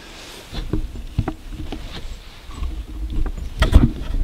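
Handling noise from gloved hands bumping and adjusting the camera on its mount: a string of knocks, clicks and rubbing, with one louder knock near the end.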